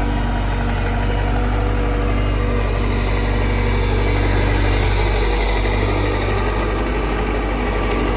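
Heavy diesel engine running steadily with a low, even hum.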